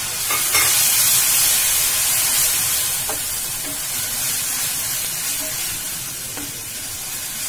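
Grated tomato sizzling in hot oil among fried onions in a kadhai while a wooden spoon stirs it. The sizzle is strongest in the first few seconds and slowly fades as the tomato mixes in.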